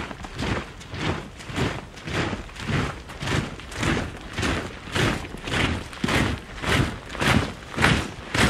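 Rhythmic whooshing noise that swells and fades evenly, a little under two times a second.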